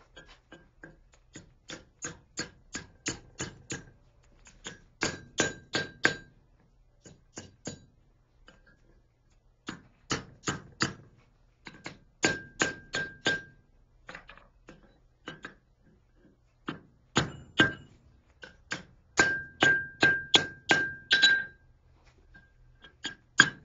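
Blacksmith's hammer striking steel on an anvil while forging a fishing gig, in runs of quick blows, about three or four a second, with short pauses between runs. Each blow rings.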